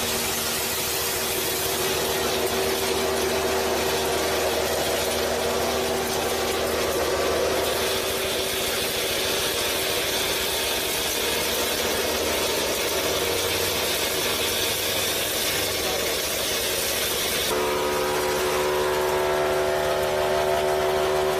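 Small motor of a miniature home-made flour mill running steadily, belt-driving the grinder as it mills wheat into flour. It makes an even mechanical whirr with a steady whine, and the whine grows stronger, with more pitched tones, near the end.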